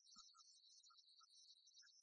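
Near silence: only faint, scattered short high-pitched blips and a brief low thump about a quarter of a second in.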